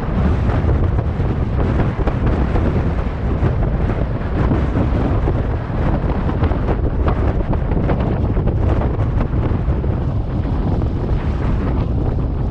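Strong wind buffeting the microphone: a loud, continuous low rumble that flutters without letting up.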